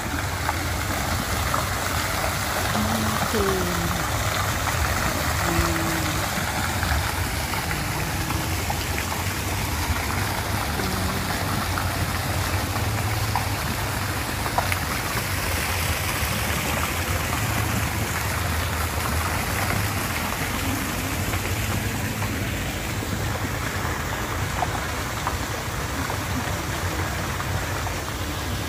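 Fountain jets splashing into a stone basin: a steady rush of falling water.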